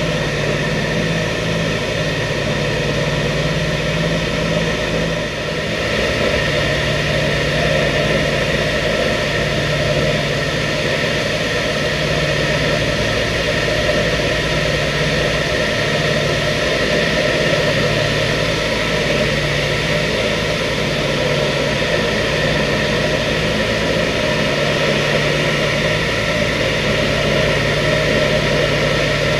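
The twin Wright R-2600 radial engines and propellers of a B-25 Mitchell bomber running steadily in flight, heard from inside the cabin, with a slow, uneven throb in the low end.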